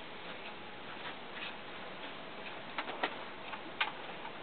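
A few faint, irregularly spaced light clicks over a steady background hiss.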